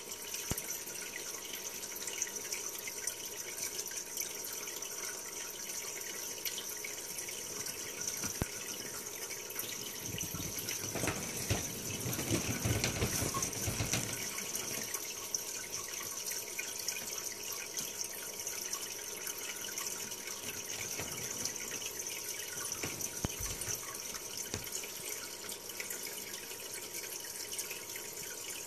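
Aquarium water bubbling and trickling from a YouTube aquarium video played through a laptop's speakers: a steady watery hiss, swelling louder and deeper for a few seconds partway through.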